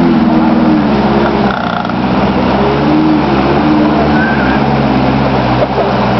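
An off-road 4x4's engine running, its pitch shifting up and down as the revs change, over the steady rush of a fast mountain stream.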